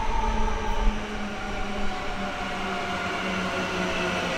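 Melbourne High Capacity Metro Train (electric multiple unit) passing close by: wheels running on the rails with the electric traction motors' whine in several tones that sink slowly in pitch. A low rumble fades out about a second in.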